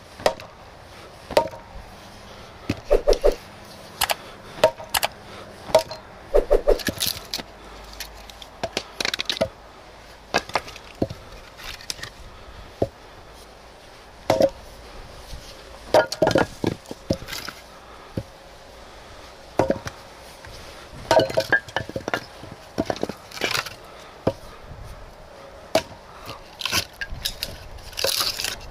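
A hatchet splitting firewood into thin sticks: sharp chopping strikes at irregular intervals, some in quick runs of several blows.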